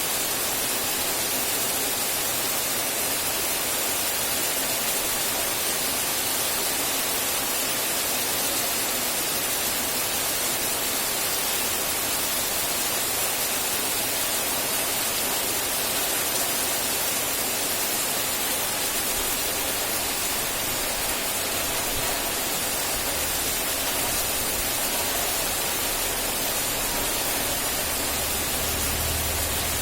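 Steady rain, a dense even hiss with no individual drops standing out. A low rumble comes in near the end.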